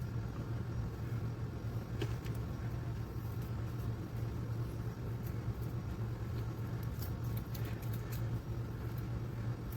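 A steady low hum, with a few faint soft rustles or ticks now and then.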